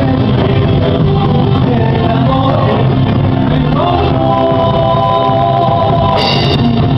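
Live Andean music, with singing over instruments and a steady beat, recorded loud with some distortion.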